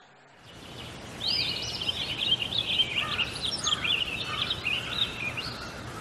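Bulbul calling: a quick run of rapid, swooping chirps starting about a second in and easing off near the end, over a steady background hiss.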